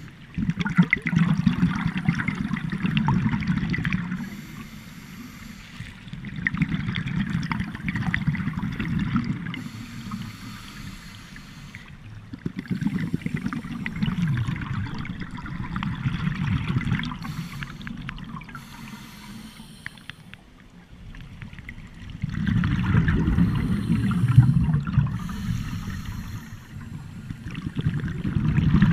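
Scuba regulator exhaust bubbles from a diver breathing underwater: about five bursts of bubbling a few seconds long, coming every five to six seconds with quieter gaps between breaths.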